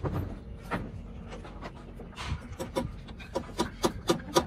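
Hammer blows on timber shuttering: a few scattered knocks, then a quick, regular run of strikes about four a second near the end.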